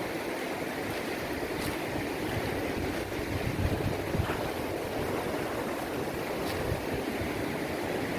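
Steady rushing of a river's flowing water, with some wind on the microphone.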